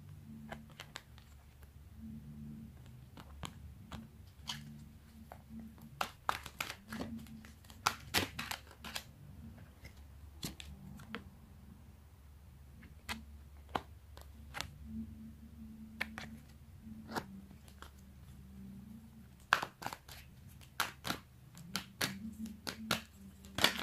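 A deck of tarot cards being shuffled by hand: irregular crisp snaps and flicks of the cards, thickest about six to nine seconds in and again near the end.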